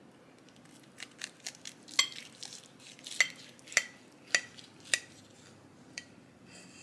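A knife and fork cutting through a stuffed bell pepper on a plate: a run of sharp clinks and scrapes as the blade saws down and strikes the plate, some clinks ringing briefly. The clinks begin about a second in and stop a little before the end.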